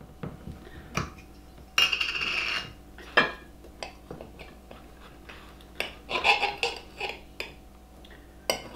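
Kitchen cutlery and dishware: the metal lid of a glass jam jar twisted off, with a longer scraping rasp about 2 s in. Then a table knife clinks and scrapes against a ceramic plate, as scattered sharp clicks with another scraping stretch about 6 s in.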